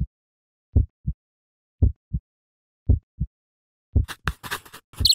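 Heartbeat sound effect: paired low thumps, lub-dub, about one beat a second. About four seconds in it gives way to a quick run of sharp clicks with a brief high ringing tone near the end.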